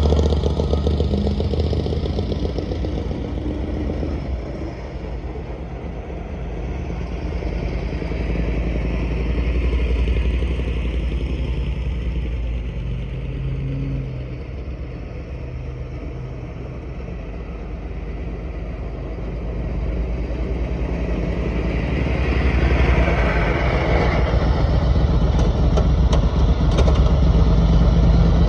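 Riding lawnmower's engine running as the mower drives about, fading and coming back louder as it moves away and nearer, loudest near the end.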